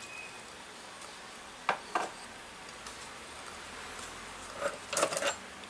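Miniature cookware being handled: light clicks and knocks of a tiny ceramic cup and a small cast-iron skillet. There are two sharp clicks a little before halfway, then a quick cluster of knocks near the end.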